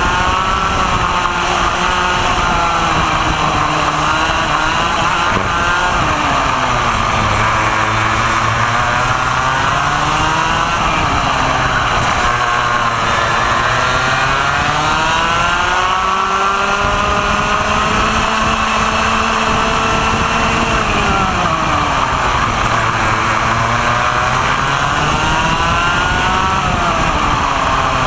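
Vortex ROK 125 cc two-stroke kart engine at racing speed, its pitch falling as it slows for corners and rising again as it accelerates out, several times over.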